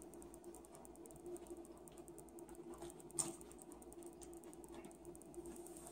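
Quiet eating sounds: a spoon clinks once against a cereal bowl about three seconds in, amid faint chewing and small mouth clicks over a steady low hum.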